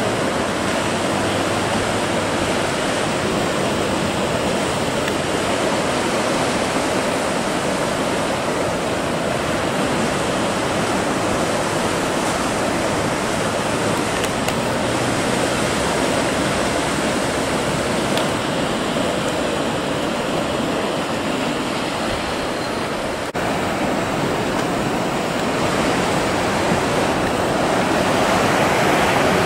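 Steady wash of choppy sea swell and breaking surf. It changes abruptly about two-thirds of the way through and swells a little louder near the end.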